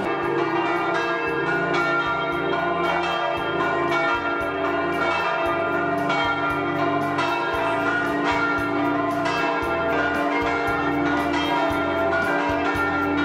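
Church bells of the Basilica of St. Anthony ringing continuously, several bells overlapping into a sustained wash of ringing tones.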